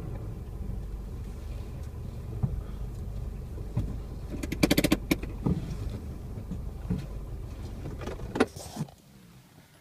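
Car running along with a steady low rumble. About halfway there is a brief burst of rapid clicking, and a couple of sharp clicks come near the end. The rumble then falls away almost to quiet.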